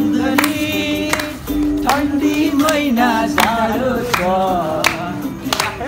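Music with singing voices over a held low note, with sharp hits now and then.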